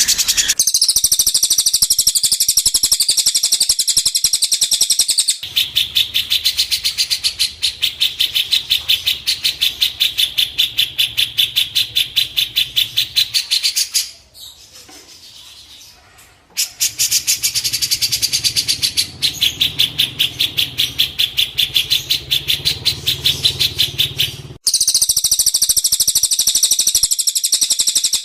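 A songbird singing a fast, even run of high chirps, about five a second. It breaks off for two or three seconds in the middle and briefly again near the end.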